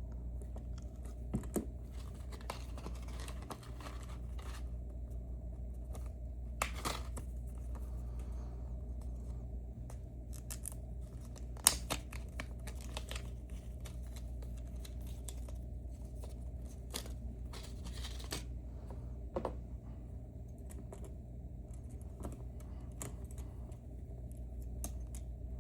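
Small metal parts of a dimple lock being handled: scattered light clicks and short scrapes, with one sharper click about halfway through, over a steady low hum.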